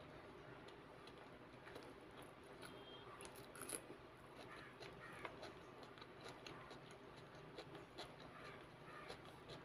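Faint wet squishing and small crackling clicks of a hand kneading and squeezing rice with curry against a disposable paper plate, loudest about three and a half seconds in.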